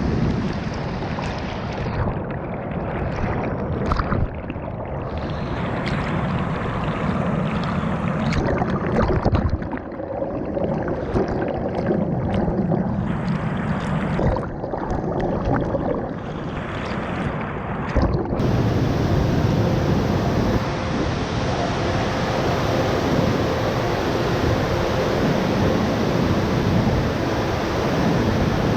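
Bousra Waterfall's water rushing and crashing in a steady roar, with some wind buffeting the microphone. About two-thirds of the way through the sound turns brighter and fuller.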